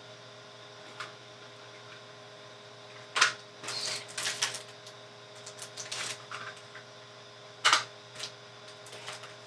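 Plastic label-tape cartridges being handled: a few sharp clicks and clacks, the loudest about three seconds in and again near eight seconds, with a short rattle around four seconds, over a faint steady hum.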